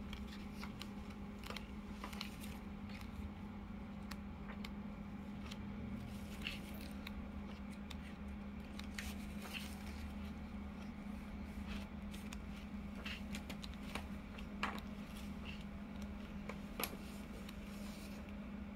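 Pages of a paperback textbook being turned and leafed through: faint irregular paper rustles and flicks, over a steady low hum.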